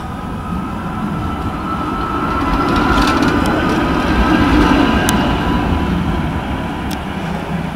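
A Ghent PCC tram running past at close range, its steel wheels rumbling on the cobbled street's rails. A faint high whine sits over the first half of the pass, with a few sharp clicks. The sound swells as the tram comes alongside and eases off again.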